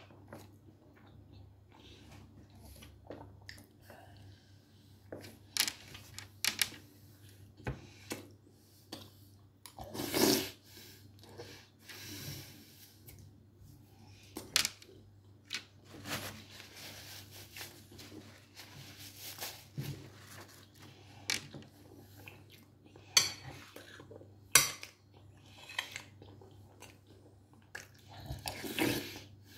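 Someone eating with a metal spoon: the spoon clinks and scrapes against a plate at irregular moments, between chewing and other mouth noises. The longest and loudest scrape comes about ten seconds in.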